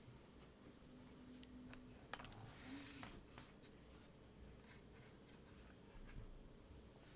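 Near silence: quiet room tone with a few faint, scattered clicks and a brief rustle near the middle.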